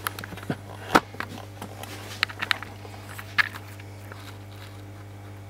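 A few sharp clicks and knocks from handling parts on a workbench, the loudest about a second in, over a steady low electrical hum.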